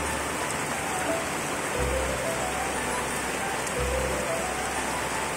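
Heavy, steady rain falling on a rice paddy and broad-leaved plants, an even hiss of countless drops. Under it a low pulse recurs about every two seconds.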